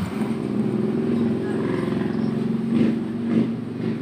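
An engine idling steadily, an even hum at a constant speed.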